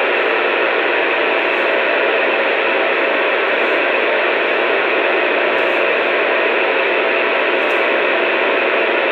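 Steady hiss of an open two-way radio transmission carrying no voice, with faint steady hum tones inside it.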